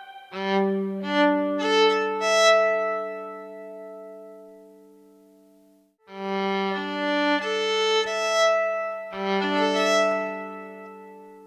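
Yamaha SV-150 electric violin played through one of its built-in sound effects: two short phrases, each opening on a low G with higher notes added on top, every note ringing on and overlapping the next, then fading slowly over a few seconds. The second phrase starts about six seconds in.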